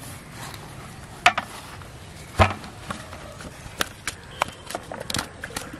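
Freshly caught fish being handled and unhooked on grass: two sharp slaps about one and two and a half seconds in, the second with a dull thud, then a run of lighter clicks and taps.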